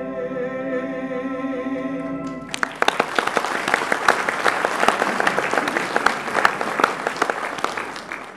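A man's voice holding the final sung note of a show tune over its accompaniment. It stops about two and a half seconds in, and audience applause follows at once and cuts off abruptly at the end.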